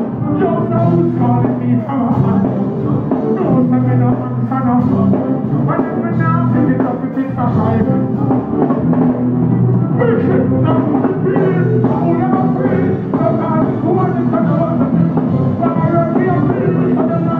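Live reggae band playing, with a voice singing over the music.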